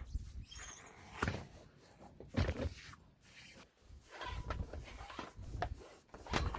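Irregular knocks, scrapes and rustles of old rubber baler belts being cut and pulled out of a Vermeer baler. There are sharper knocks about a second in, near two and a half seconds, and near the end.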